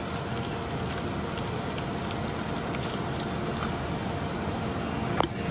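Steady background noise with a faint hum, likely a fan or heater running in the shop, with a few light clicks and one sharper click about five seconds in.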